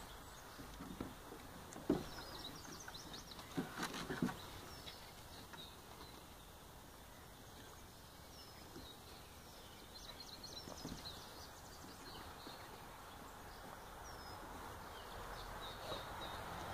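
Quiet background with small birds chirping on and off. A few short knocks and scuffles come in the first four seconds as puppies clamber on a raised mesh dog bed.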